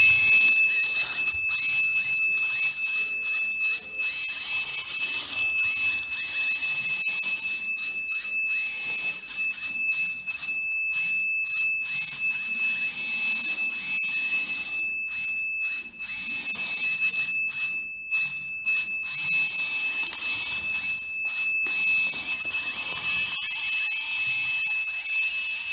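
Piezo alarm buzzer of a robot-car alarm clock sounding one continuous high tone, with brief breaks, over the running of its DC gear motors driving at full speed. The buzzer stops suddenly near the end as the alarm is switched off.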